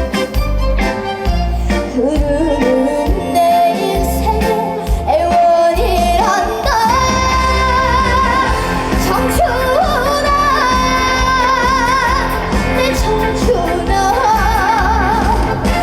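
Trot singing by a female voice with wide vibrato, performed live over a backing track with a steady bass beat.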